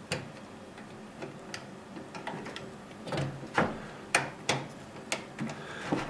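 A hand screwdriver clicks and taps irregularly against a screw while starting it into a power-supply mounting hole on the back of a computer case. The clicks get louder and closer together in the second half.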